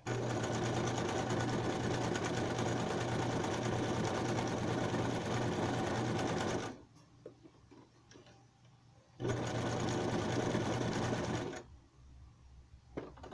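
Electric sewing machine running at a steady speed, sewing a zigzag stitch through a sheet of paper. It runs for about seven seconds, stops, then runs again for about two seconds and stops, with a few faint clicks near the end.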